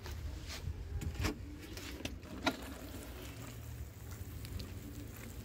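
Low steady rumble of wind and handling noise on a phone microphone, with a few faint clicks.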